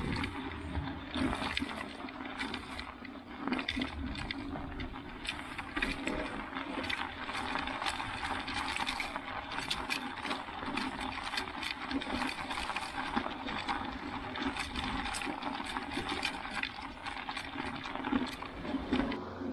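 Studded bicycle tires rolling over fresh snow: a steady crunching hiss scattered with many small clicks.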